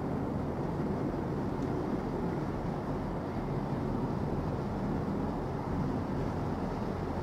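Steady low rumble of the escort tug's and container ship's engines passing on the river.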